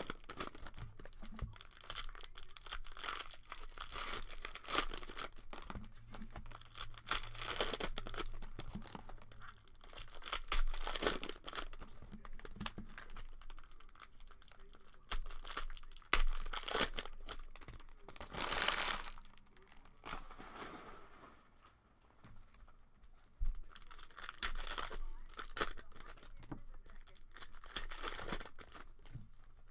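Cellophane trading-card pack wrappers being torn open and crinkled by hand, in irregular crackling bursts, with one louder crackle about two-thirds of the way through.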